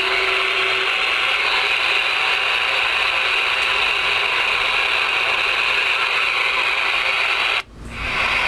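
Steady hiss of open-channel static from the Galaxy DX-98VHP CB radio's receiver, which is hooked to an antenna and unsquelched. Near the end the hiss cuts out suddenly and fades back in within about half a second.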